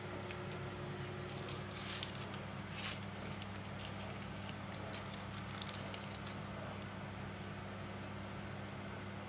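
Faint scattered crackles and light ticks as Maggi stock cubes are unwrapped and crumbled by hand into a pot of meat and palm oil, over a steady low hum.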